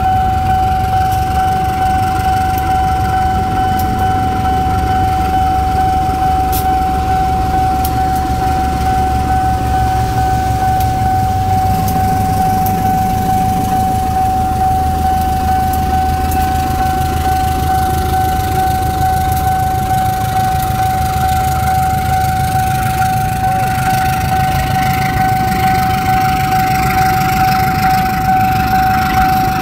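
A loud, unbroken high-pitched tone, like a siren held on one note, runs over the low rumble of a KAI CC203 diesel-electric locomotive's engine. The rumble swells for a while around the middle.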